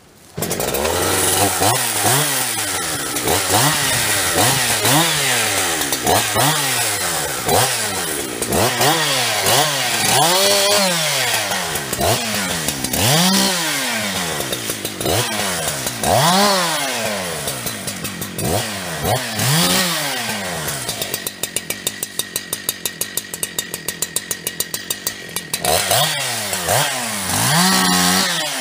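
Farmertec/Huztl 372-clone two-stroke chainsaw cutting wood, its engine pitch climbing and dropping over and over every couple of seconds. About two-thirds through it falls back to a pulsing idle for several seconds, then revs up again near the end.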